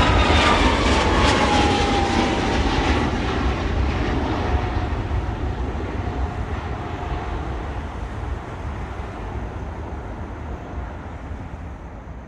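Jet airliner passing close by: a loud engine rumble with a whine that falls in pitch over the first few seconds, then the noise fades steadily as the aircraft moves away.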